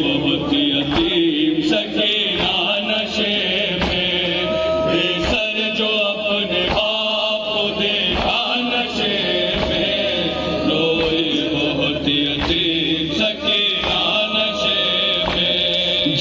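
Voices chanting a noha, a Shia lament, with a regular beat about every one and a half seconds.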